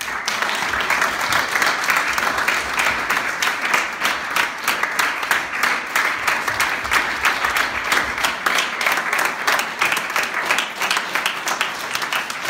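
Audience applauding: a roomful of people clapping, starting suddenly and going on steadily and loudly.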